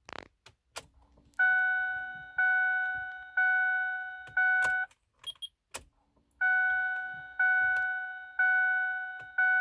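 Ford Super Duty cab warning chime dinging: a pitched ding about once a second, four in a row, then after a short pause four more. A brief click sounds at the very start.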